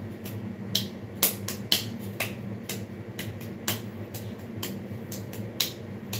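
A run of short, sharp clicks or taps, irregular and about two to three a second, over a faint steady low hum.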